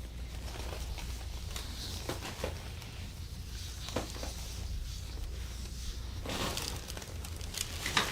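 Soft rustling and scattered faint clicks of hands massaging a patient on a treatment table, over a steady low room hum. The rustling thickens briefly a little past six seconds in, and a sharper click comes near the end.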